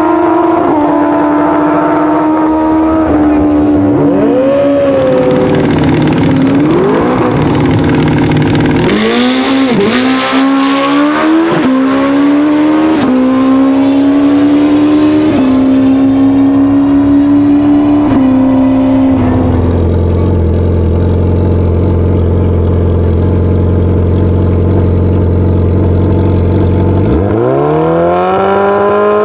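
Drag-racing superbike engines at full throttle, pitch climbing and dropping back at each upshift as the bikes accelerate down the strip. Later an engine holds steady revs, then revs sharply upward near the end as a bike sits on the start line.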